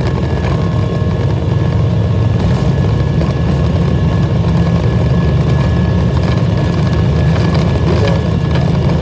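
Jet airliner engine noise heard from inside the cabin during the takeoff roll: a steady, loud low rumble with a thin, steady whine from the engines above it.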